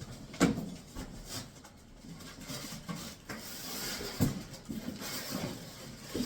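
Cardboard box and packing being handled while the heavy main unit of a meat grinder is pulled out: a thump about half a second in, rustling and scraping, and another thump around four seconds in.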